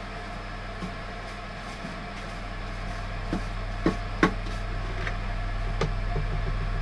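A few light, sharp taps and clicks as metal swarf is brushed off the top of a fuse board into a dustpan, the strongest about four seconds in, over a steady low hum.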